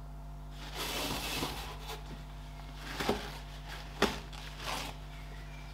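Small brass drain-tap parts being handled on a paper towel: a soft rustle about a second in, then two sharp light clicks about three and four seconds in.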